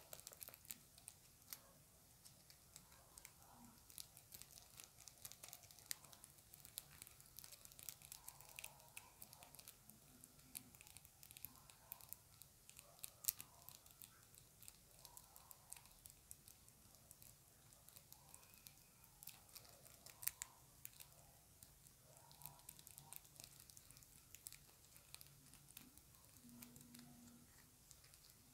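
Long acrylic fingernails tapping and scratching quickly on a small round hard object: a dense, irregular run of faint clicks, with a few sharper taps standing out.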